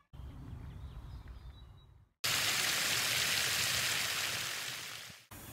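Fountain jets spraying and splashing into a pond: a steady loud rush of falling water that starts suddenly about two seconds in, after a quieter stretch of low rumble, and cuts off just before the end.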